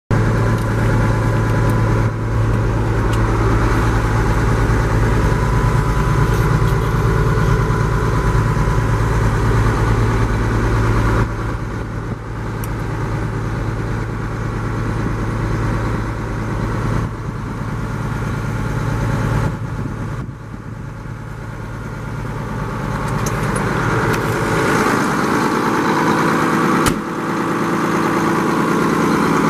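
Case International 7140 tractor's six-cylinder turbo diesel engine running steadily at idle. Its sound shifts about a third and two thirds of the way through, then grows louder near the end, heard from beside the engine hood.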